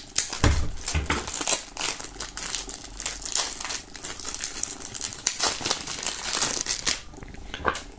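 Clear plastic film being torn open and peeled off a sealed deck of playing cards, crinkling and crackling in a quick, irregular run.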